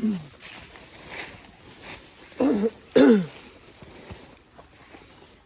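A man clearing his throat with short, coughing vocal sounds: one at the start, then two close together about halfway through, each dropping in pitch.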